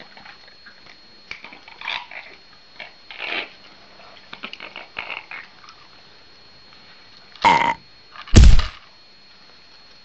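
Amazon parrot giving two loud, harsh, throaty calls about a second apart in the second half, the second one louder and deeper, after a run of soft scattered clicks.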